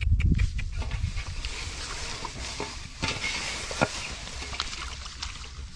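Rustling of grass and leaves with scattered clicks and handling noises, and one sharper knock about four seconds in.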